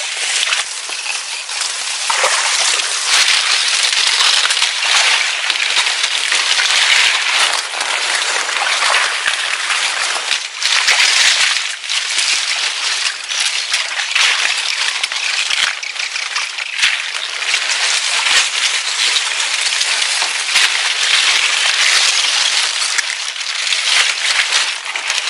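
A person wading through a swamp: continuous splashing and rustling, full of small knocks and clicks, that rises and falls without a break.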